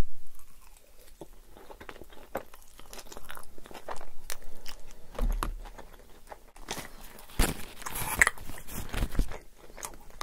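Close-miked chewing of a mouthful of yoğurtlu tantuni, with wet mouth sounds and soft crunches. The chewing grows louder and denser about seven seconds in.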